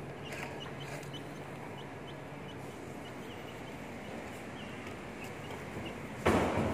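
Small birds chirping in short, repeated high notes over a steady low engine hum, with a sudden loud rush of noise about six seconds in.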